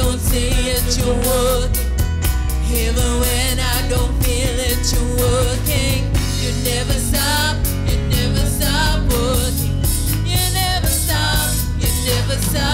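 Live gospel worship song: a woman singing the lead over keyboards, bass guitar and a drum kit.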